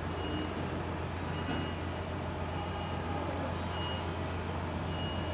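Steady low hum under a constant background noise, with a short high electronic beep repeating about once a second.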